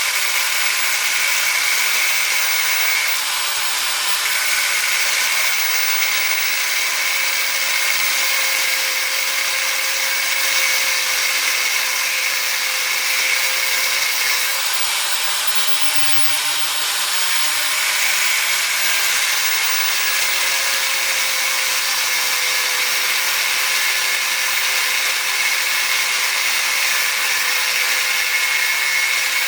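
Angle grinder running continuously as it cuts into a scrap electric motor to get at the copper windings: a steady high whine over a dense hiss of grinding, the whine dipping out briefly a couple of times.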